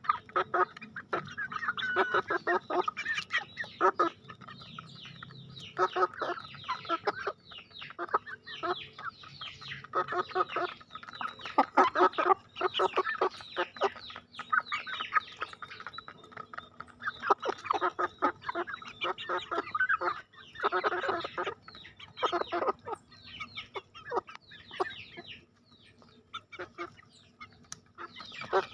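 Young Bangkok game chickens, about three months old, clucking in short, frequent calls as they peck feed off stone paving, with quick taps of beaks on the stone mixed in. The calls ease off for a few seconds near the end.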